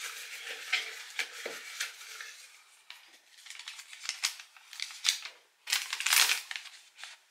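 A folded paper slip rustling and crinkling as it is unfolded by hand: a run of short crackles, loudest near the end.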